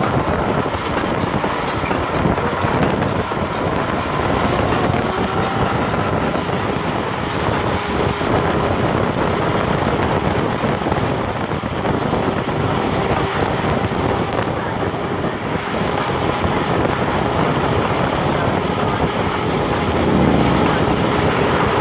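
Steady rush of wind over the microphone with road noise from riding an electric scooter.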